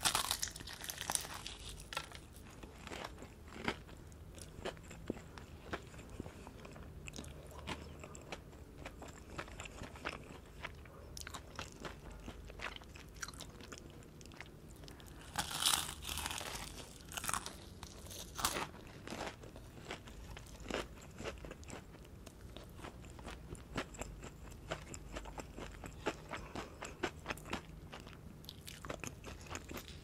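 Biting and chewing a Marrybrown Mala-Tup spicy fried chicken drumstick: the crispy breading breaks with a loud crunch at the start and again about halfway through. Between the bites come steady chewing and many small crackles of the crust.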